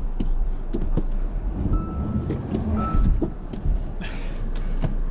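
Car engine running under throttle as the car tries to back out of an icy rut in snow, with scattered knocks and crunches.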